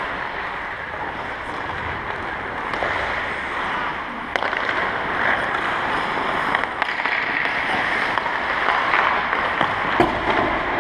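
Ice hockey skates scraping and carving across the ice, with sharp cracks of stick on puck, one about four seconds in and another near the end.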